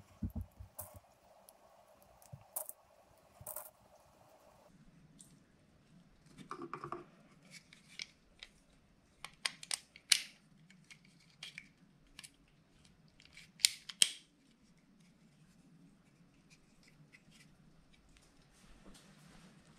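Small, sharp, irregular plastic clicks and taps of a Crosman 1077 air rifle's rotary magazines being loaded with 4.5 mm lead pellets and handled.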